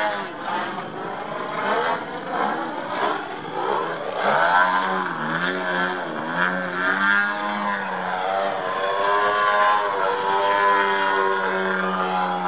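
Engine of a large-scale RC Extra 330SC aerobatic plane, a GP-Engine with an MTW silencer, running hard, its pitch swinging up and down as the throttle is worked through the manoeuvres. In the second half it settles to a steadier note.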